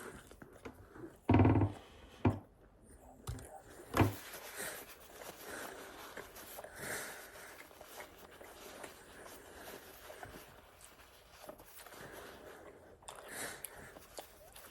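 Chewing and mouth sounds of someone eating pizza dipped in ranch. A short louder hum-like voice sound comes about a second and a half in, and a sharp knock at about four seconds.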